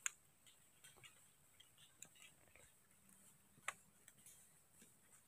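Near silence, with faint scattered ticks and two sharp clicks, one at the very start and one about two-thirds of the way through.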